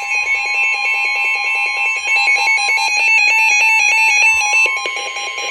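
Emergency Alert System alert tone for a severe thunderstorm warning: a loud steady electronic two-tone alarm with a fast pattern of higher beeps over it. The higher beeps stop shortly before the end while a single tone holds on.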